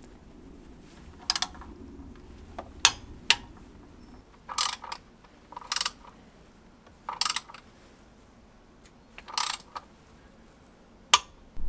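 Socket ratchet clicking in four short runs, each about half a second, with a few separate sharp metallic clicks before and after, as bolts on the timing belt idlers and tensioner are tightened.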